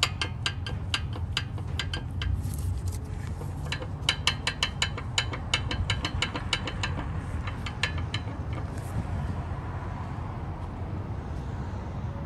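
Loose sway bar end link on a Ford Flex front suspension clunking in quick sharp knocks, several a second, as it is shaken by hand, in two runs with a short pause between and a few last knocks before it stops. The knocking is the sign of suspension nuts left loose after a DIY parts replacement.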